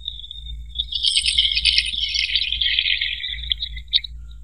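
Distilled water pouring in a thin stream into a cell opening of a 12-volt lead-acid car battery: a high, trickling sound that gets louder about a second in and stops near the end.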